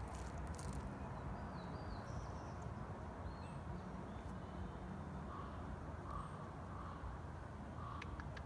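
Outdoor ambience with a steady low rumble, a few faint high chirps of small birds, and from about five seconds in a crow cawing repeatedly, roughly one call a second.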